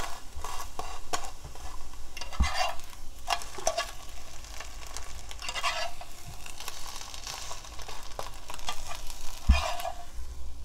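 Egg-yolk sheet sizzling in a hot nonstick frying pan while a slotted metal spatula scrapes under it and taps against the pan to turn it, with louder scrapes and knocks about two and a half seconds in and again near the end. The cook thinks the heat was set high, as the sheet browns quickly.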